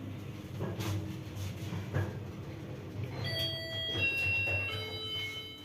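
ShchLZ passenger elevator car running with a low hum and a couple of knocks. About halfway through, an electronic chime melody of short clear tones begins playing.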